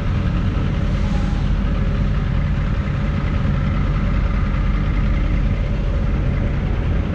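Heavy truck's diesel engine running steadily at low revs.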